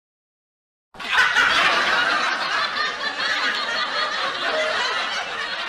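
Laughter sound effect: hearty laughing that starts suddenly about a second in and carries on without a break.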